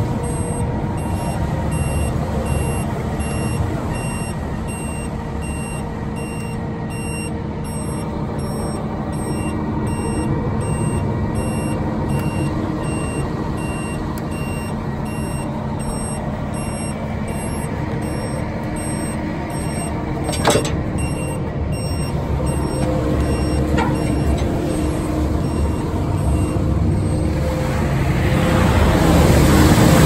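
Diesel truck engine running steadily while a backup alarm beeps in a regular series. One sharp knock comes about two-thirds through, and a rushing noise swells near the end.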